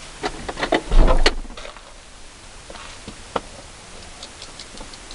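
A quick run of sharp clicks and knocks from things being handled, with a heavy thump about a second in, then a single sharp click a little past three seconds.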